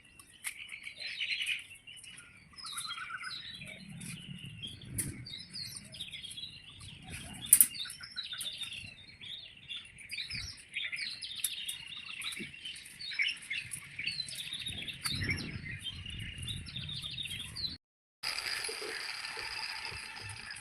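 Many small birds chirping in a dense, continuous chorus of short, quick calls, with a sharp click about seven and a half seconds in. The sound cuts out briefly near the end and comes back with thicker chirping.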